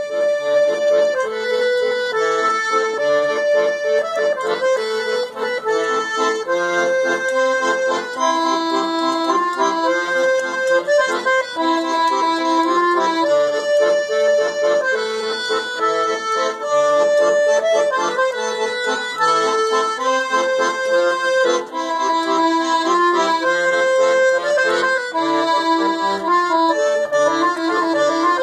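Accordion playing a waltz: a sustained melody over lower repeated accompaniment notes, loud and continuous.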